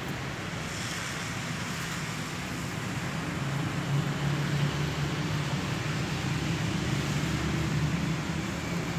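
Steady low rumble and hiss of road traffic, growing a little louder about a third of the way in.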